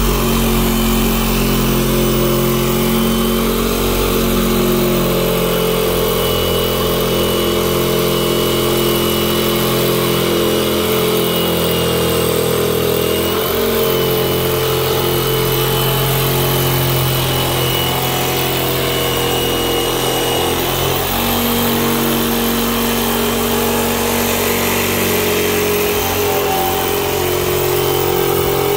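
Corded Porter-Cable jigsaw running continuously as its blade cuts through the top of a plastic 55-gallon drum. The motor's pitch shifts a couple of times, about halfway and two-thirds of the way through, as the load on the blade changes.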